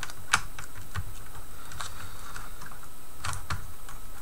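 Scattered light plastic clicks and taps from a Dell Latitude D820's replacement keyboard being handled while its ribbon cable is pushed back into the connector: a sharp click just after the start, a few lighter ones about a second in, and a pair a little after three seconds.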